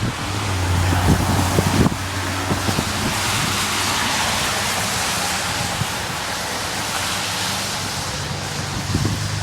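Traffic passing on a slush-covered road: a loud hiss of tyres on wet slush that swells toward the middle, over a low engine hum near the start and again near the end.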